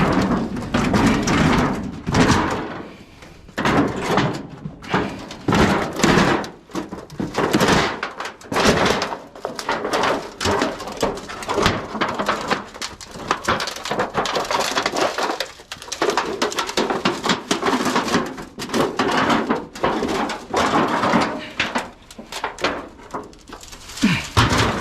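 Thin sheet-metal panels of a tin shed being handled and stacked, with many short clanks, knocks and rattles one after another.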